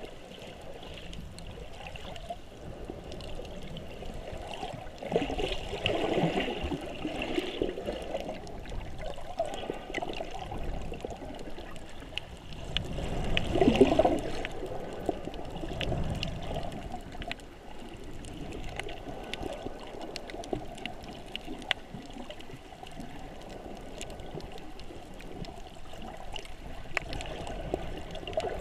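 Muffled water gurgling and sloshing as heard by a submerged camera, a steady murmur that swells louder twice, with scattered faint clicks.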